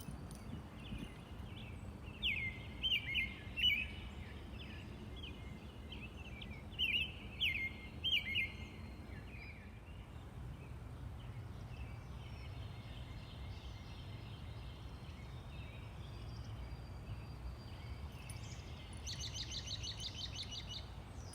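A robin singing: two groups of short, clear whistled phrases, one about two seconds in and another about seven seconds in. Near the end comes a rapid series of higher notes, over a steady low background rumble.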